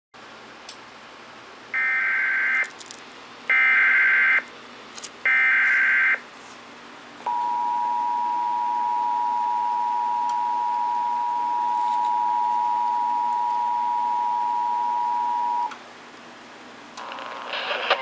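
Emergency Alert System signal for a coastal flood warning: three short bursts of SAME digital header data about two seconds in, then the steady two-tone attention signal held for about eight seconds. A spoken alert message begins near the end.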